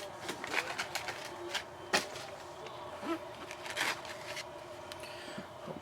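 Trading cards and packaging being handled: a string of soft clicks and rustles, with a sharper click about two seconds in.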